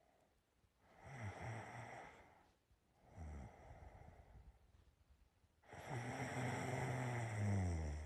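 A person snoring in sleep: three snoring breaths, each a low buzzing, the last one longer and louder than the others.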